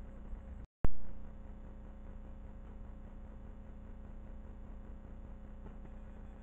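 Steady electrical hum and hiss from the camera's own recording circuit. About a second in, the sound drops out briefly and a sharp click follows, fading quickly.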